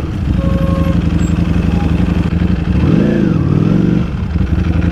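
Ducati Panigale V4 S's V4 engine running at low speed in slow traffic, heard from the rider's seat. Its revs rise and fall once about three seconds in.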